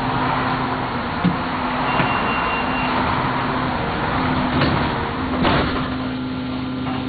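Train in motion heard from inside the carriage: a steady rumble and rail noise with a low hum and a few sharp clicks from the wheels and track.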